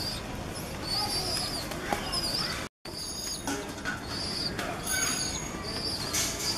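Small birds chirping over and over in short high-pitched calls, with pigeons cooing low underneath. The sound cuts out for a moment about two and a half seconds in.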